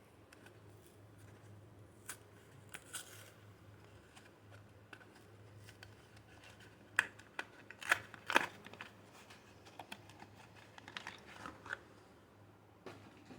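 Soap packaging being unwrapped: scattered crinkles, clicks and tearing of the wrapper, loudest in a cluster of sharp crackles a little past the middle, over a faint low hum.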